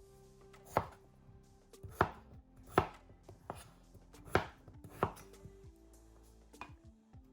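Knife chopping peeled raw potatoes on a cutting board: separate sharp chops at an uneven pace, roughly one a second.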